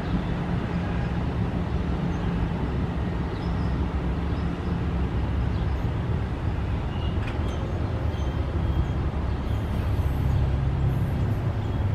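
Steady rumble of an NJ Transit commuter train pulling away from a grade crossing, its low hum fading over the first few seconds. Near the end a new low hum comes in as the crossing gate arms start to rise.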